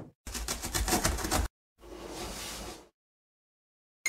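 Cartoon sound effects of a box bursting open: a rapid rattling for about a second, as of a cardboard box shaking, then a softer whoosh, a pause of silence, and a sharp hit with a short ringing tone at the very end.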